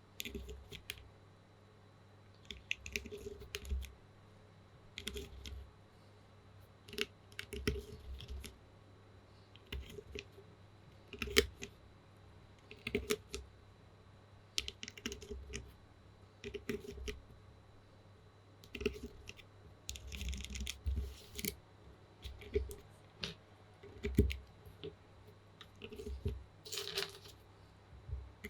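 Mechanical keyboard clicking in short bursts of a few keystrokes, with brief pauses between them, on a plateless, foam-filled TU40 board with lubed Gateron Pro Milky Yellow linear switches. Near the end comes a longer, scratchier burst of sound.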